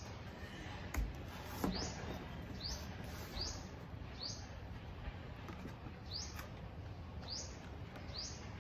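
A small bird chirping: a run of short, high chirps, about one a second, with a pause in the middle. Two light knocks about a second in, from a cardboard box and packaging being handled.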